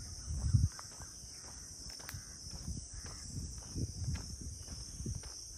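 Steady high chirring of insects, with footsteps on a dirt path and a louder thud about half a second in.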